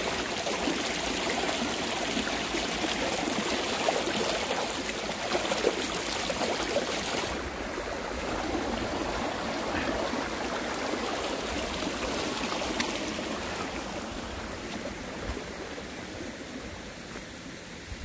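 Rain-swollen mountain stream rushing and trickling over rocks, a steady wash of water noise. It turns a little duller about seven seconds in and fades slowly toward the end.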